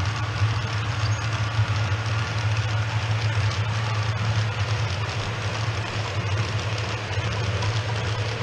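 OO gauge model freight train of bogie hopper wagons running past close by, its wheels rolling and rattling steadily over the track, over a steady low hum.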